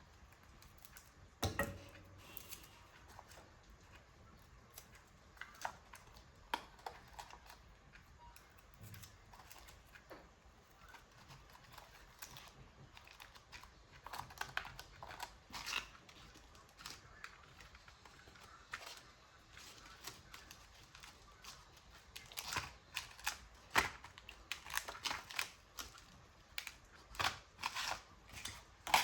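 Paper being cut and handled at close range: scattered small snips, taps and rustles, coming in quicker runs near the end.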